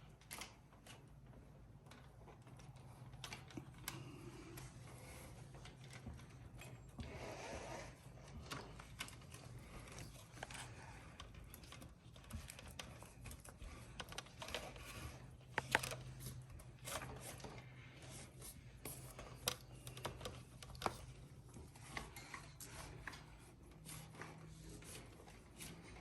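Faint clicks, taps and rubbing of a hydraulic brake hose and old cable housing being pushed and pulled through an e-bike frame, over a low steady hum.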